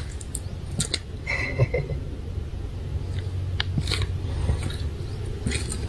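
Outdoor wind rumbling on the microphone, with scattered small clicks and rustles and a brief faint high chirp about a second and a half in.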